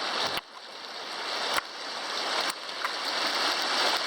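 A creek swollen with snowmelt runoff, rushing steadily, with a few sharp clicks.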